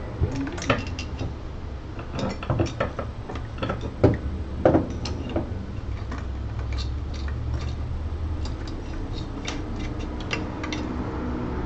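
Metal parts and tools of an Ender 3 3D printer kit clicking and knocking together as it is being assembled, irregular sharp clicks with a few louder knocks in the first five seconds, then sparser ticks.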